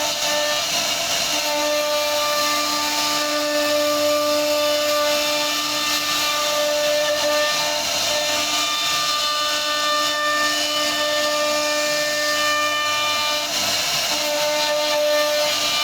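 CNC router running and cutting wood: a steady hiss of cutting noise under whining machine tones that change every few seconds as the machine moves.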